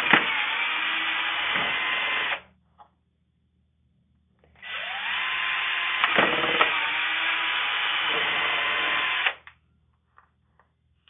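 Power drill with a quarter-inch bit drilling pilot holes straight through a folding door, in two runs. The first run stops about two seconds in. The second starts about four and a half seconds in, its motor winding up in pitch and then running steadily, and stops near nine seconds.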